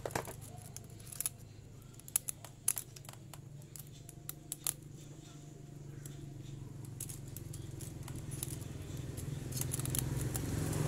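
Light metallic clicks and clinks of hand tools on a small motorcycle engine's valve gear as a feeler gauge is worked between the rocker arm and valve to check the valve clearance. There are a handful of sharp clicks, most in the first half, over a low hum that grows louder near the end.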